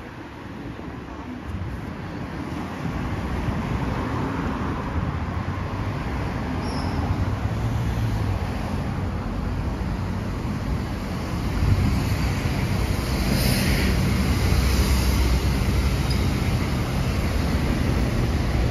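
Road traffic on a city street: a steady rumble of engines and tyres from passing vehicles, getting louder about twelve seconds in.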